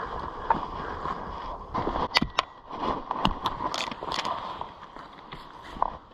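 Wood and brush being handled, heard as a few sharp knocks and snaps in the middle over a steady background hiss.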